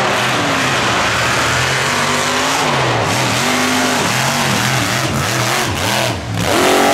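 Off-road race vehicle's engine revving hard, its pitch swinging up and down again and again over a loud rushing noise, with a quick high rev near the end.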